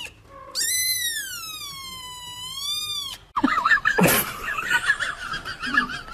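Kitten giving one long, drawn-out meow that rises, falls and rises again, lasting about two and a half seconds. About three seconds in it is cut off by a busier, rapidly warbling high-pitched sound, with a sharp click about a second later.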